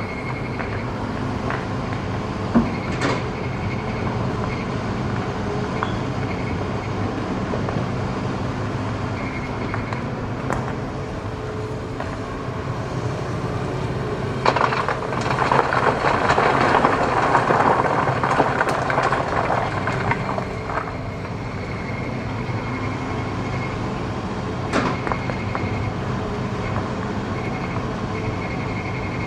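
Hitachi hydraulic excavator's diesel engine running steadily, with a few sharp knocks of the bucket on rock and a louder stretch of rock scraping and grinding in the middle as the bucket digs into hard stone.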